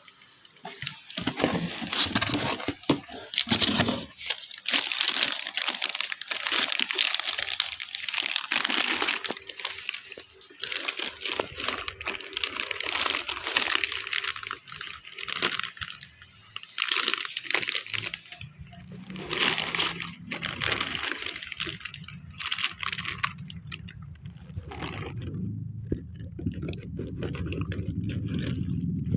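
Parcel packaging being handled and opened: irregular crinkling, crunching and tearing of wrapping. A low rumble builds over the last several seconds as the crinkling dies away.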